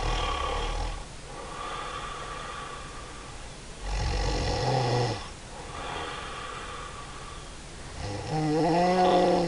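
A woman snoring in deep sleep: three loud snores about four seconds apart, with softer breaths between them, the last snore rising into a pitched, droning tone near the end.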